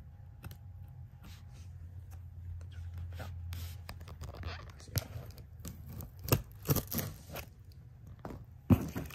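Cardboard shipping box being torn open by hand: a series of short, sharp tearing and scraping sounds of cardboard, starting a few seconds in and loudest in the second half.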